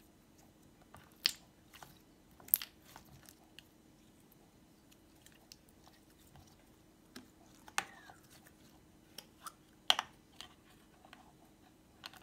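Hands handling clear slime and small plastic tubs and lids: scattered sharp wet pops and clicks, four of them louder, with a brief falling squeak near the middle.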